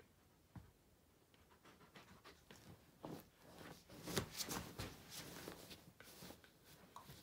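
Wolf dog rooting around in a quilt on a bed: bedding rustling and scratching in irregular bursts, starting about three seconds in, with a few faint ticks before.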